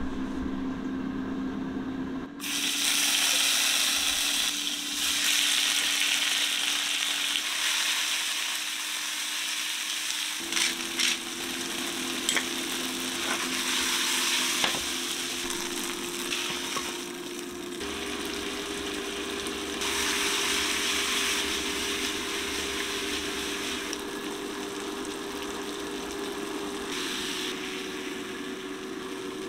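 Potato gnocchi frying in hot oil in a skillet: a loud sizzle that starts about two seconds in and swells and eases as they are turned, with a few clicks of the utensil against the pan around the middle.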